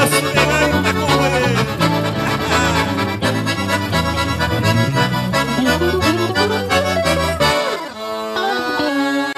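Accordion playing the instrumental ending of a gaúcho song, with chords over an alternating bass. Near the end it drops into a falling run and settles on a closing chord.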